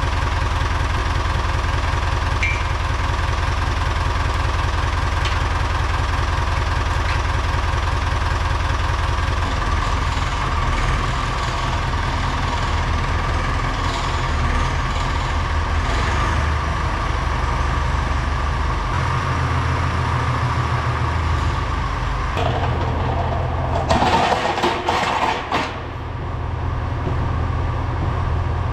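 Diesel tractor engine idling steadily, its low note shifting a few times. Near the end comes a short burst of knocking and rattling.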